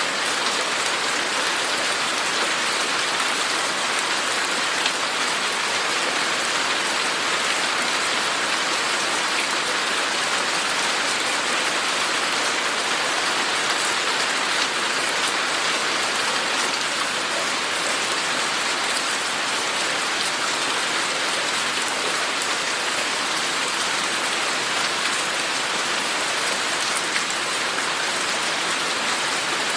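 Steady rain falling, an even hiss of drops on surfaces with faint scattered individual drips.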